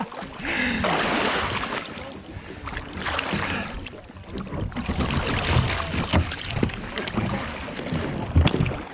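Water splashing and sloshing around a sea kayak as it is capsized and rolled back upright with the paddle, in several uneven surges, with a sharp knock near the end.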